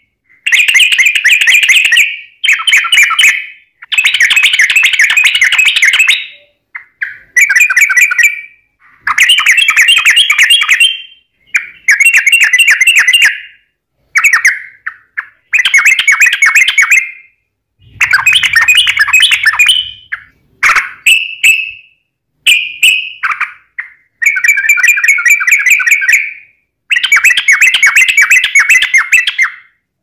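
Yellow-vented bulbul singing loudly in a long run of fast rolling trilled phrases, each one to two and a half seconds long, repeated with short breaks in between.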